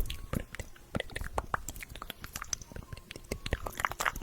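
ASMR mouth sounds close to a microphone: irregular wet clicks, pops and smacks of lips and tongue.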